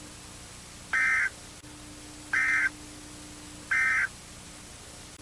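Three short electronic data bursts from an emergency alert broadcast, each about a third of a second long and about a second and a half apart, the signal that ends the alert message. A steady low hum and hiss run underneath.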